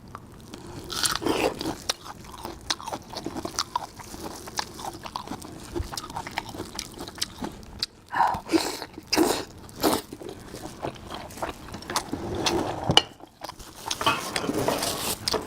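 A person chewing and biting food close to the microphone: irregular crunchy clicks and short mouth noises.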